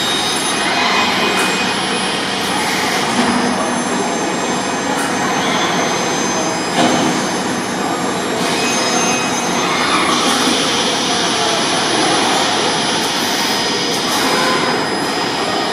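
Steady, loud rushing machine noise of an automated warehouse, where a robot arm is handling cardboard cases, with a few faint knocks scattered through and one louder knock about halfway.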